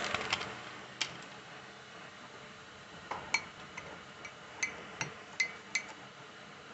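Metal spoon stirring instant coffee granules and honey in a ceramic mug, knocking against the mug's side with sharp ringing clinks: a few at the start, one about a second in, then a run of about eight from about three seconds in.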